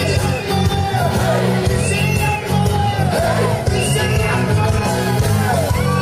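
Music with singing over a steady low beat, with shouts from a crowd.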